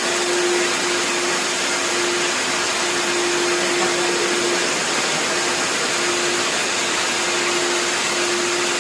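60-litre wet and dry vacuum cleaner running steadily: an even rush of air with a steady motor hum.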